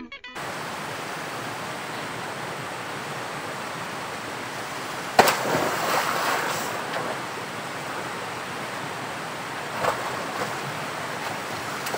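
Curug Orok waterfall's steady rushing roar of falling water. A sudden loud sharp sound cuts in about five seconds in, and a smaller one near ten seconds.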